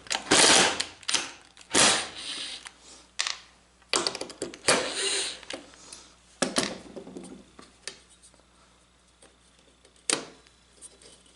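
Aluminium pieces being handled and set in place on a wooden board: irregular clinks, knocks and scrapes that die down after about eight seconds, with one more sharp knock near the end.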